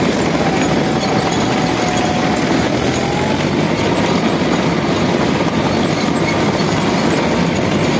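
DT-75 crawler tractor on the move: its turbocharged SMD diesel engine runs steadily under load while the steel tracks clatter and click, pulled tight by wet snow packed onto them.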